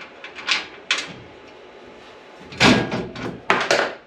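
Knocks, clunks and scraping of metal bed-rack pieces being handled and fitted onto a pickup's bed rails. The loudest clunk and scrape comes about two and a half seconds in.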